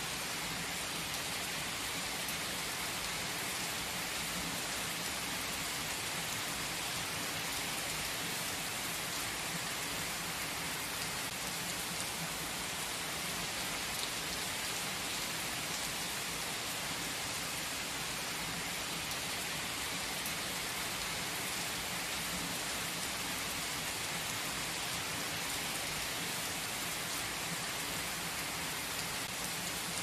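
Heavy rain pouring onto asphalt and parked cars, a steady, even hiss of the downpour.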